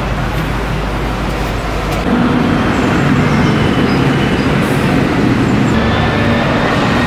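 Steady city street traffic noise, growing louder about two seconds in as a low engine hum from passing road vehicles comes in.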